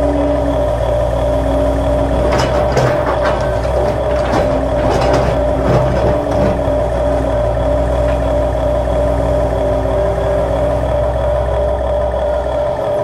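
Remote-control Huina toy excavators running with a steady engine-like drone and whine, with several short scraping clicks about two to six seconds in as a bucket digs into rocky dirt.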